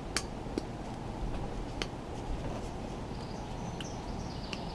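Stainless-steel pineapple slicer being twisted down into a whole pineapple: a few sparse, soft clicks and crunches as the blade bites into the fruit. Under it is a steady outdoor background hiss with faint chirping.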